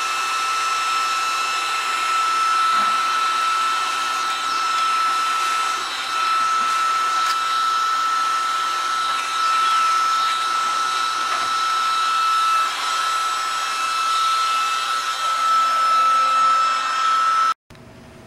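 Electric heat gun blowing steadily while softening old paint for stripping: a steady fan rush with a constant high whine, cutting off suddenly near the end.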